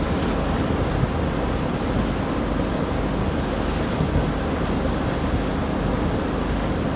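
Steady rushing wind noise on the microphone, buffeting at the low end, with no distinct events.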